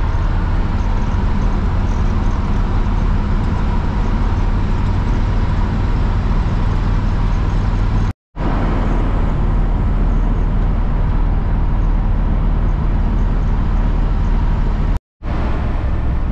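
Older pickup truck driving at road speed, heard from inside the cab: a steady low engine drone under road and tyre noise. The sound drops out completely for a split second twice, about eight and fifteen seconds in.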